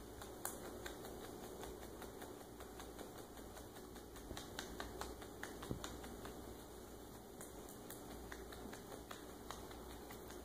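A quiet room with faint, scattered small clicks and taps.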